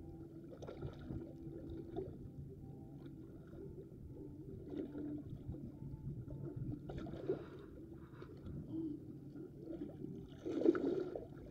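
Small waves lapping and sloshing against shoreline rocks, with a louder slosh near the end.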